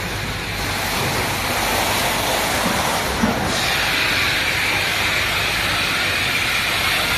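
Production-line machinery running with a steady, even noise. A short knock comes a little over three seconds in, and a higher hiss grows stronger from about halfway on.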